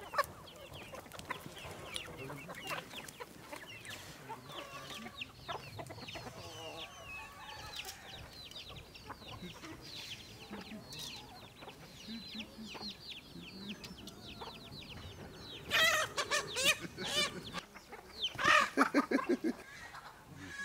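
Domestic chickens calling: a steady run of short high chirps through most of the stretch, then two loud, drawn-out calls about sixteen and nineteen seconds in.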